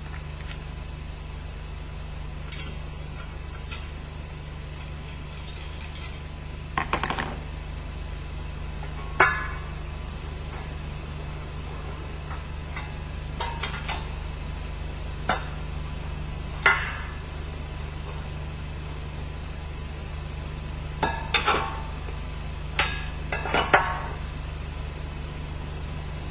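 Scattered light metallic clinks and taps, about a dozen spread irregularly, from tools and nuts being handled while the cylinder head of an MZ 250 two-stroke engine is bolted down, over a steady low hum.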